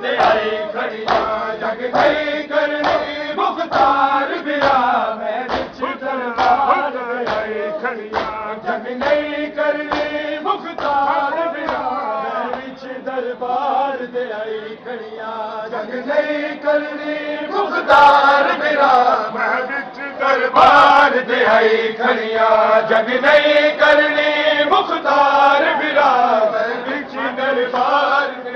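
A group of men chanting a Punjabi noha (a mourning lament) together, sung in unison over steady, evenly spaced slaps of matam chest-beating. The singing grows louder about two-thirds of the way in.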